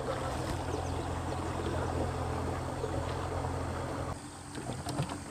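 Outboard motor of a small canopied boat running steadily as the boat pulls away across the water; the engine sound stops about four seconds in.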